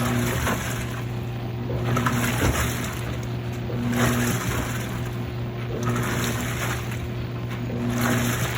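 Midea 13 kg washing machine running: a steady motor hum under a mid-pitched tone that switches on and off, with the load swishing in swells about every two seconds. This is the machine's untangling movement on the wet sheets ahead of the spin.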